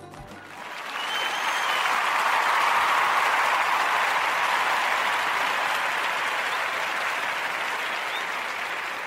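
Crowd applauding, swelling in over the first second and slowly fading toward the end, with a brief whistle about a second in.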